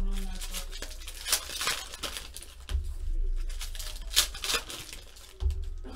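Foil trading-card pack wrappers crinkling and tearing as they are handled and ripped open, in quick irregular crackles. A couple of dull low bumps of hands or packs against the table.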